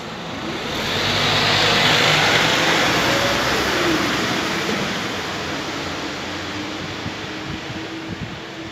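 A motor vehicle passing close by: a rush of engine and tyre noise swells up, peaks about two seconds in, drops in pitch as it goes past, then fades away.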